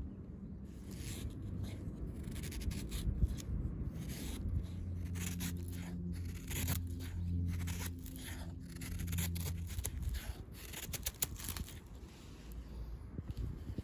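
Knife blade shaving thin curls off a wooden stick to make a feather stick: a run of short scraping strokes. A low steady hum sits underneath for a few seconds in the middle.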